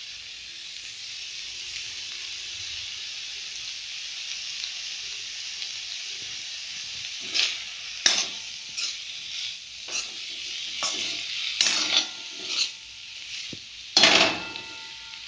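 Potato and pea sabzi sizzling in hot oil in a kadhai. After about seven seconds a metal spatula stirs and scrapes against the pan in a string of short strokes, the longest near the end.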